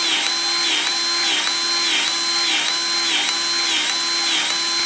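DeWalt cordless grease gun running with the trigger held, a steady motor whine that dips in pitch about twice a second with each pump stroke. It is forcing grease into a water-filled air compressor tank, building the pressure past 200 PSI for a hydrostatic test.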